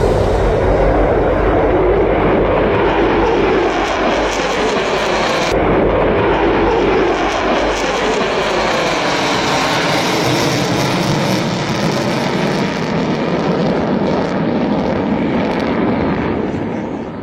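Jet noise of a Tupolev Tu-160 bomber's four turbofan engines as it flies past, a loud steady rush with a slowly sweeping, swirling rise and fall in pitch. The upper hiss drops away abruptly about five and a half seconds in, and the sound fades near the end.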